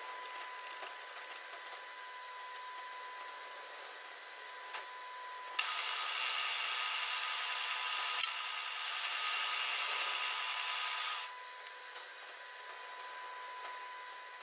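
Milling machine spindle running with a steady hum. For about five seconds in the middle, an end mill cuts into the aluminium piston crown, enlarging a valve cut-out as the rotary table is turned. This makes a loud, steady cutting noise that starts and stops suddenly.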